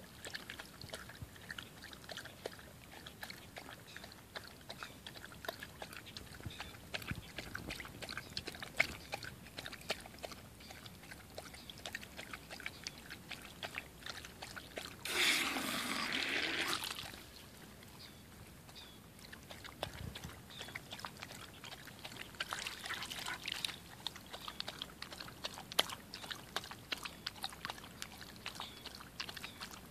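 Siberian husky puppy lapping water nonstop from a bowl, a rapid run of wet tongue laps and clicks, with a garden hose trickling into the bowl. About halfway through, a louder rush of splashy noise lasts about two seconds.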